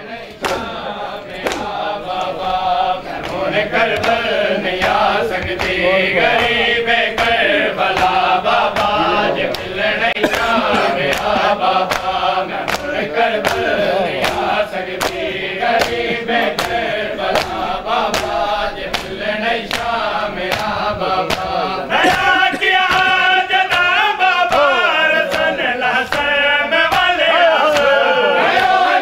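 A group of men chanting a noha lament together, kept in time by a steady beat of sharp open-hand slaps on bare chests (matam). About two-thirds of the way through the chanting turns brighter and stronger.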